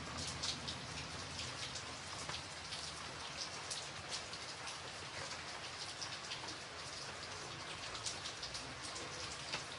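Steady rainfall: an even hiss with frequent distinct drops striking close by.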